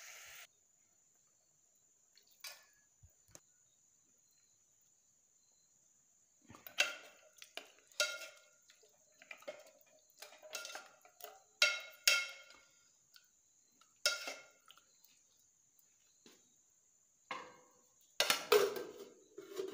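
A metal spoon stirs and scrapes meat in an aluminium cooking pot, clinking against the pot's sides in irregular strokes from about six seconds in. A denser clatter of metal on the pot comes near the end.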